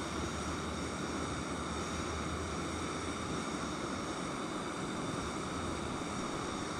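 Steady wind noise with a low rumble underneath.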